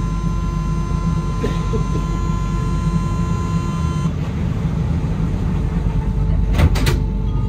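Steady electronic door-closing warning tone of an Alstom NS-93 metro train, cutting off about four seconds in, over the train's low hum while it stands at the platform. Near the end the sliding doors shut with a quick cluster of sharp knocks.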